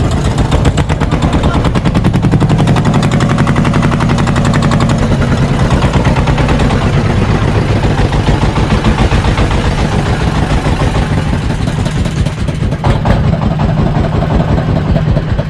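Fishing boat's engine running under way as the boat chases a hooked fish that is taking line, a steady rapid pulsing sound.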